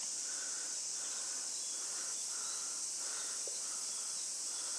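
Steady high-pitched insect chorus, with a short, lower call repeating about once or twice a second.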